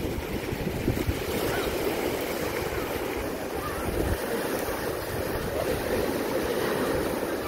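Rough lake surf washing and breaking steadily onto a sandy shore, with gusty wind rumbling on the microphone.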